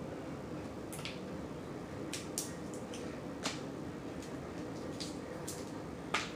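Blue crab shell and leg being cracked and picked for meat: a few sharp, scattered clicks and snaps, the loudest near the end, over a steady low hum.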